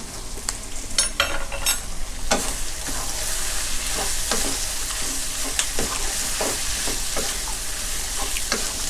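Pork belly and onions sizzling in a nonstick wok, stirred with a wooden spatula: a steady frying hiss with a scrape or knock of the spatula every half second or so, a quick cluster of them about a second in.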